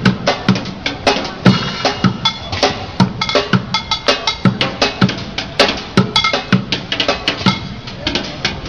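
Fast street drumming with sticks on upturned plastic buckets and other found objects: a busy rhythm of deep thuds and sharp cracks.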